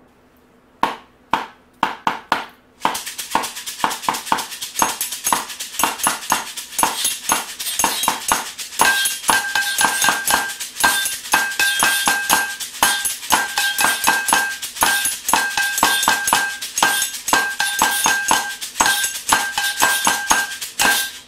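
Home-made kitchen percussion band of five layered parts: an upturned pot and an oats canister drummed, a shaker, a ridged scraper and a small glass struck with a stick. A few separate taps open it, the full rhythm with the shaker's rattle comes in about three seconds in, and the glass joins about nine seconds in with short repeated ringing notes.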